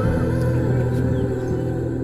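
Background music: slow ambient music with sustained held tones over a steady low note.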